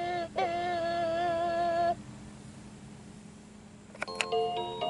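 VTech Roll and Learn Turtle toy's electronic voice singing a held, wavering note for about two seconds. About four seconds in, a click as its gear button is pressed, then the start of a beeping electronic chime melody.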